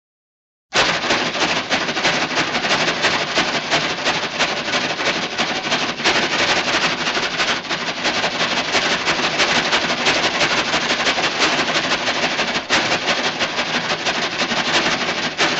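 A sound effect of dense, rapid sharp cracks that starts abruptly just under a second in and keeps going steadily.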